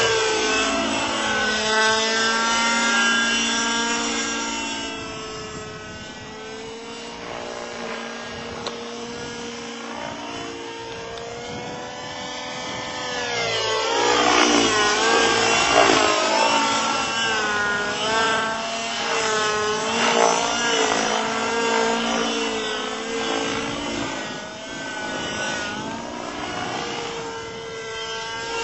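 Robbe Millenium 2 radio-controlled model helicopter flying aerobatics: its engine and rotor note keeps swinging up and down in pitch as it moves about, and grows louder about halfway through as it comes closer.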